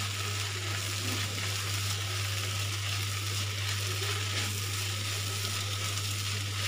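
Wooden spatula stirring and scraping chopped red amaranth greens with ground coconut in a non-stick pan, over a steady frying sizzle and a low steady hum.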